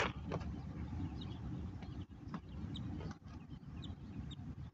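Wind rumbling on the microphone on an open shore, with a sharp knock right at the start and scattered faint high bird chirps.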